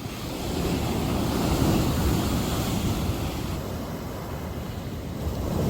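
Sea waves breaking and washing on the shore, one surge swelling to a peak about two seconds in and easing off before the next comes in near the end, with some wind rumble on the microphone.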